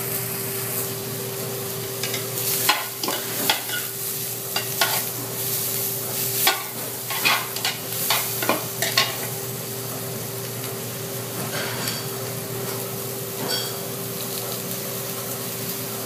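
Chiles, onion and garlic sizzling in oil in a large aluminium stockpot, with a metal spoon stirring and knocking against the pot in a run of clatters from about two to nine seconds in. A steady hum runs underneath.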